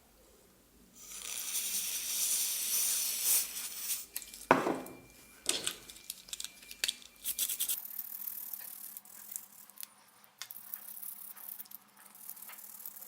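Hands working on blender parts: about three seconds of loud hiss, then many clicks, knocks and rattles of small hard parts, with a brief falling sweep in pitch among them.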